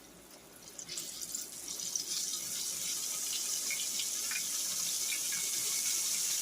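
Floured pieces of liver frying in hot grease: sizzling starts about a second in and builds to a steady hiss with scattered pops and crackles.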